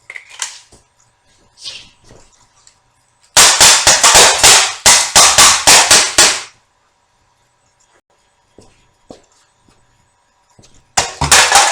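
HK USP 12-gram CO2 airsoft pistol fired semi-automatically as fast as the trigger can be pulled: about a dozen sharp pops in roughly three seconds, starting a few seconds in. A brief loud burst of noise follows near the end.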